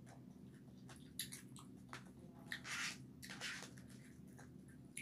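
A person chewing a mouthful of rice with soft, wet mouth sounds and a few short smacks, over a faint steady low hum.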